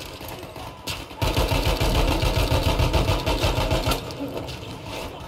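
Airsoft electric rifle firing a long full-auto burst, a fast even rattle of shots starting about a second in and stopping about four seconds in, with a few lighter clicks around it.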